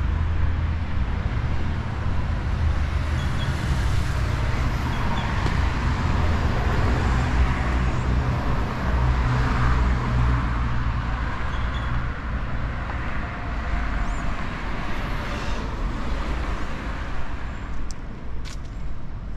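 City street traffic: motor vehicles passing, a steady low engine rumble with tyre noise that swells about halfway through and eases near the end.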